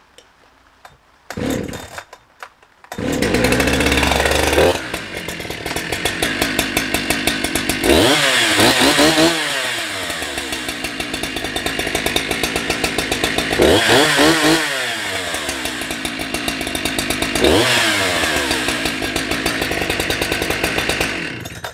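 Husqvarna 365 X-Torq two-stroke chainsaw sputtering twice, then starting about three seconds in and idling, with three blips of the throttle, each a quick rise and fall in pitch, before cutting off at the end. It is being test-run with its muffler refitted on helicoiled bolt threads. The owner hears an airy sound that he thinks could be an exhaust leak or could just be the new exhaust.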